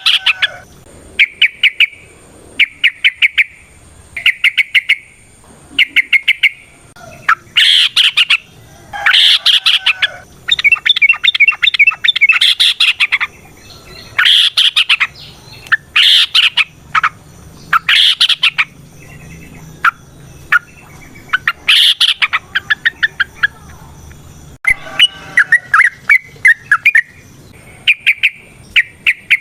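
Yellow-vented bulbul (trucukan) singing: loud, short bursts of rapid chattering notes repeated every second or two, with a longer, denser run of notes near the middle.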